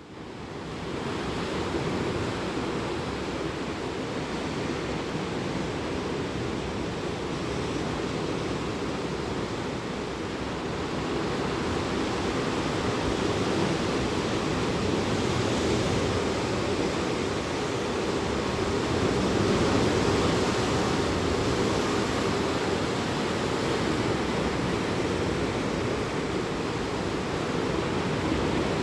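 Sea surf: waves breaking and washing in a continuous rush that swells and eases slowly. It fades in over the first second or two.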